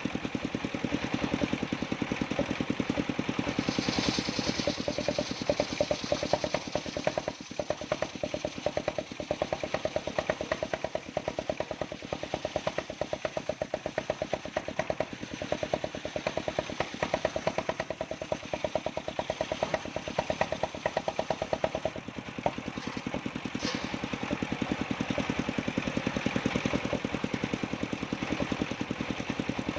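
The engine of a mobile circular sawmill running steadily, with a fast, even beat of firing pulses.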